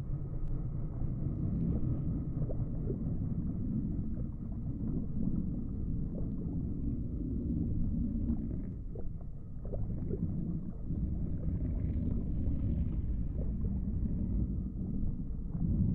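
Steady, low underwater rumble with faint gurgles: the sound-designed hum of an underwater intervention drone cruising through deep water.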